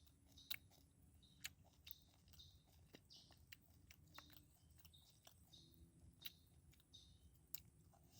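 A person chewing fried chicken organs close to the microphone: faint, irregular wet chewing with sharp mouth clicks.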